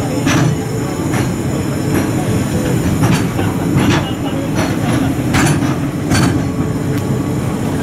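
Series E6 Shinkansen cars rolling past on rails: a steady low rumble from the wheels, with irregular sharp clacks over the rail joints and a brief, faint wheel squeal.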